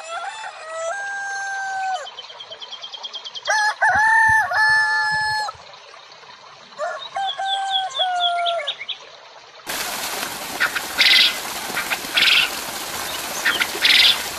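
A rooster crows three times, each crow long and drawn out, with small birds chirping quickly in between. About ten seconds in, this gives way to the steady rush of a small stream of water spilling down a bank.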